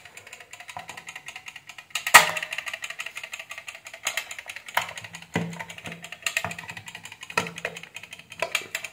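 Orbis T-11 mechanical off-delay timer: a sharp clack about two seconds in, then its pendulum escapement ticks rapidly, broken by several louder irregular knocks and clacks as the unit is handled. The ticking is abnormal, a sign of a faulty pendulum movement, which the owner says is not swinging correctly.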